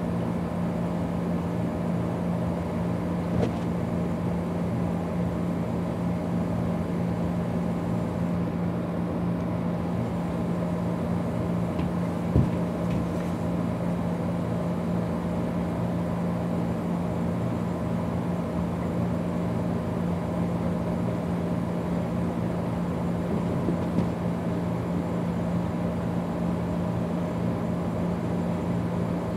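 Steady low mechanical hum with hiss, unchanging throughout, broken by a few faint ticks and one sharp tap about twelve seconds in.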